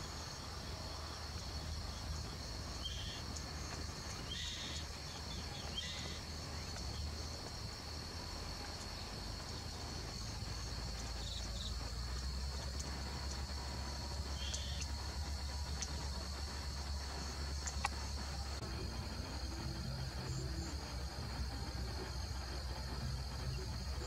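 Insects keep up a steady, high, continuous drone. A few short, faint chirps stand out during the first half, over a low background rumble.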